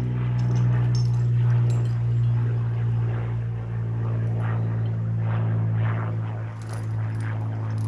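Low, steady drone of a propeller aircraft flying over, holding one pitch throughout.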